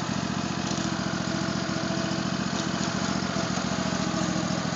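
Riding lawn mower's small engine running steadily with an even firing rhythm.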